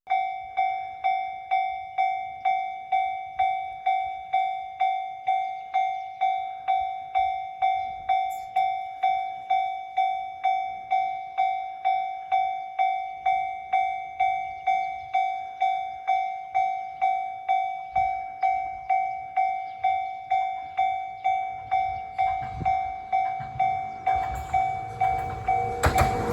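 Level crossing warning bell ringing, a steady run of ringing strikes about two a second, signalling an approaching train. Near the end the rumble of the oncoming train rises beneath it.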